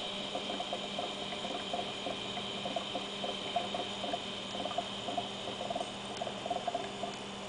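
Oxyhydrogen (HHO) gas from an electrolysis generator bubbling out of a tube under water, an irregular run of small gurgling pops, over a steady electrical hum. The gas is filling a submerged bottle by water displacement to measure the generator's output.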